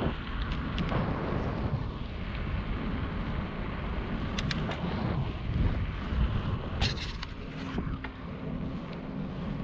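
Wind rushing over the microphone of a moving mountain bike, with a low rumble from the tyres on pavement. A few sharp clicks or rattles come through, a cluster about halfway through and another about seven seconds in.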